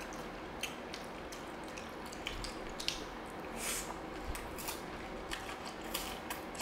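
Close-miked eating sounds: scattered small wet mouth clicks and smacks, with a short slurp of thin food strands about halfway through.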